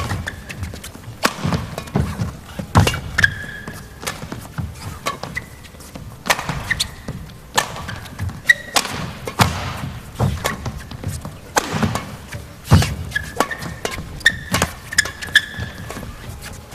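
Badminton rally in a large hall: sharp racket strikes on the shuttlecock about every one to two seconds, with players' feet thudding and shoes squeaking on the court floor.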